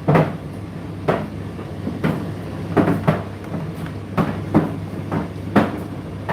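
Indesit IDC8T3 condenser tumble dryer running, with a steady low motor hum and the load tumbling in the drum, giving irregular thuds about once or twice a second.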